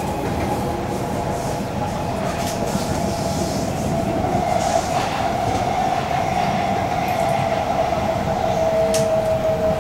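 Interior of a Kawasaki-CRRC Sifang C151C MRT train under way: steady rumble of wheels on rail, with the whine of its IGBT-VVVF traction drive. The whine sinks slowly in pitch over the second half as the sound grows slightly louder.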